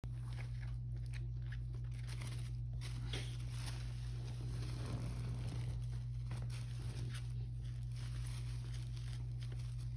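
A steady low hum with faint scattered rustling and crinkling over it.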